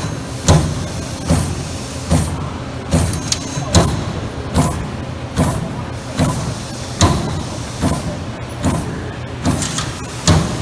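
Amada Vipros 358 CNC turret punch press cycling, one sharp punch stroke about every 0.8 s over a steady machine hum.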